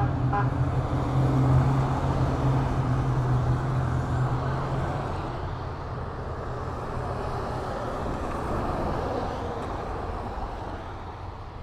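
Motorcade SUVs and police cars driving past on a rain-wet street. A low engine drone is strong in the first half over the hiss of tyres on wet pavement, and the whole sound fades toward the end as the vehicles move off.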